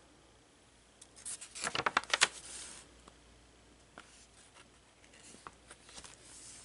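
Pages of a collage art journal being turned by hand: a burst of paper rustling and crackling about one to three seconds in, then a few light ticks and a softer rustle of another page near the end.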